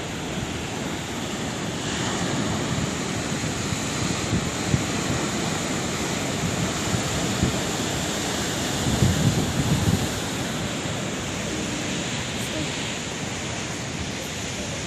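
Sea waves washing on a shore: a continuous surf noise, with a louder, rumbling surge about nine seconds in.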